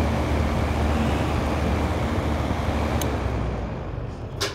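Comfort Zone space heater's fan running steadily: a rush of air with a low motor hum. The sound fades over the last second, with a small click about three seconds in and a sharper click at the very end.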